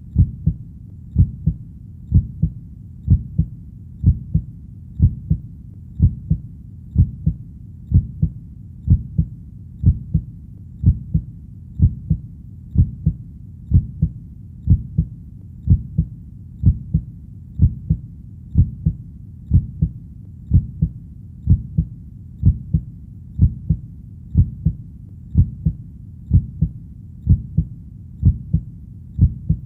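Heartbeat: a steady lub-dub double beat, about one a second, deep and low, over a constant low rumble between beats.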